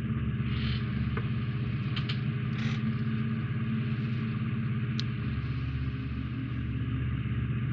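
Steady low electrical or machine hum, with a few brief soft rustles and a faint tick from hands handling small plastic model parts.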